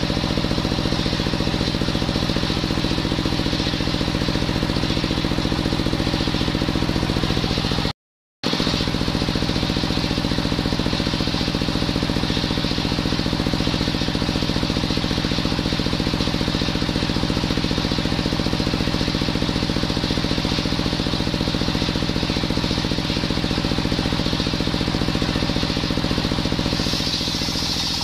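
A stationary engine runs steadily, driving a belt-driven table circular saw that is ripping coconut wood, with the engine's fast pulsing under the blade's cutting hiss. The sound drops out for a moment about eight seconds in. Near the end the hiss grows as the blade bites into a fresh log.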